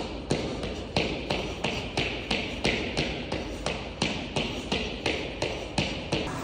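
Pogo jumps: both sneakers landing together on a rubber gym floor in a steady rhythm of about three landings a second, each a sharp tap, stopping shortly before the end.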